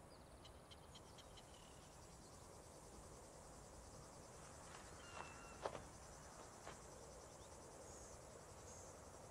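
Near silence: faint outdoor ambience of insects chirping steadily, with a few faint short chirps and clicks.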